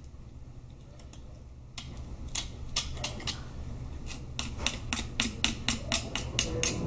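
Knife heel clicking and scraping against a lamb foreshank bone while the membrane around it is cut for frenching. Sharp clicks start about two seconds in and come faster, several a second, over a steady low hum.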